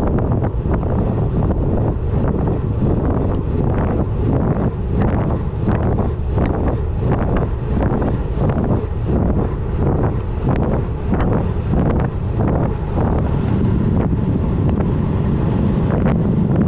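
Heavy wind buffeting the microphone of a handlebar-mounted action camera on a road bike riding at speed on asphalt: a loud, steady, low rush. Through the middle stretch it pulses about twice a second.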